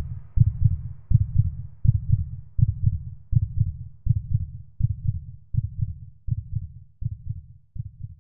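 Heartbeat: a steady low double thump, lub-dub, about 80 beats a minute, growing a little softer near the end.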